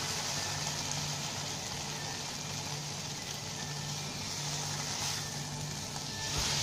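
Masala-coated potatoes frying in a non-stick pan with a steady sizzle as they are stirred with a silicone spatula, over a low hum.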